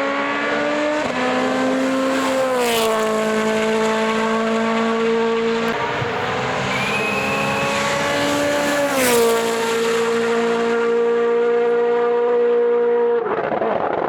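Rally car engine running at high revs, its pitch climbing slowly and then dropping sharply twice. Near the end it gives way abruptly to a rougher noise.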